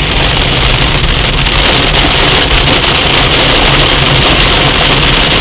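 Heavy rain falling hard: a loud, steady hiss made of dense, fine hits, with a low rumble underneath.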